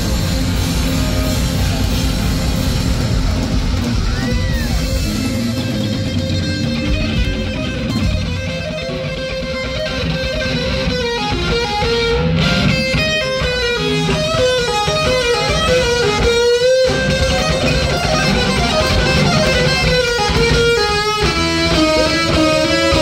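Heavy metal band playing live, with electric guitar to the fore. The full band drops back about five seconds in, leaving a distorted electric guitar solo of bent notes and quick runs.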